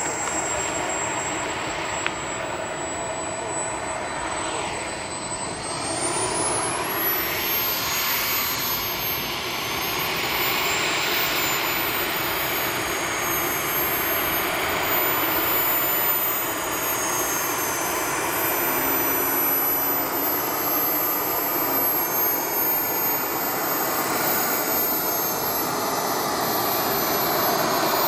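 Steady machine noise: a continuous rush with a thin high whine that rises in pitch about six seconds in, then wavers slowly up and down.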